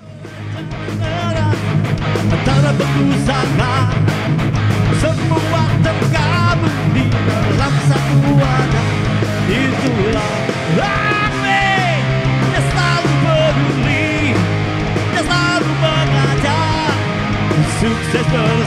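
Rock music with electric guitar, a steady bass line and drums, fading in over the first couple of seconds.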